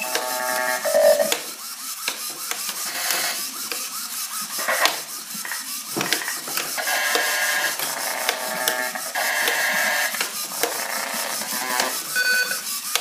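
Glitchy electronic sound from a Bastl microGranny granular sampler: buzzing, stuttering sampled sounds with rapid clicks, broken by short held chords of tones that come and go.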